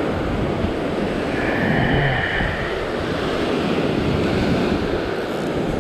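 Ocean swell breaking and washing over a rock ledge, with wind buffeting the microphone. The hiss of the wash swells a little about a second and a half in.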